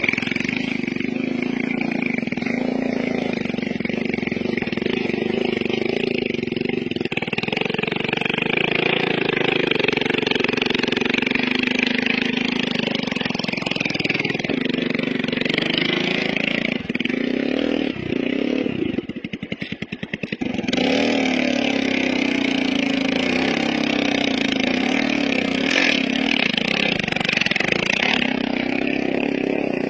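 Small motorcycle engine revving hard under heavy load as it climbs a steep, muddy slope with its rear wheel spinning. About two-thirds of the way through, the engine falls briefly to a slow, low putter, then picks up again.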